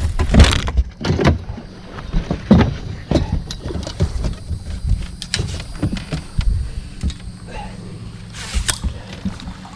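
Irregular knocks, bumps and handling noises on a fishing boat as a hooked bass is netted and brought aboard, over a steady low hum. The loudest knocks come in the first few seconds, with another cluster near the end.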